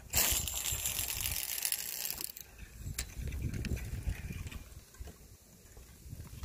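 Spinning fishing reel and line whirring for about two seconds, then stopping, followed by a sharp click and low knocks of handling the rod and rod rest.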